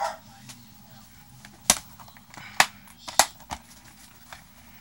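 Plastic multi-disc DVD case being handled and shut: three sharp plastic clicks and snaps, spaced about a second apart, and a fainter click after the last.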